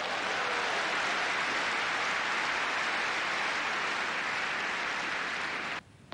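Arena crowd applauding after a point, a steady dense clapping that cuts off suddenly near the end.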